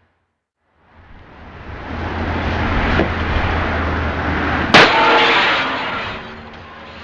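Car crash: a rising rush of noise as a vehicle comes on, then one loud impact near five seconds in, followed by metallic clanging that rings and fades away.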